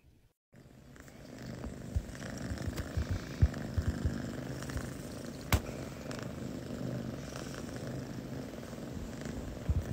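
Cats purring: a steady low rumble that starts about half a second in and builds over the next second or so. A few soft thumps and one sharp click, about five and a half seconds in, break through it.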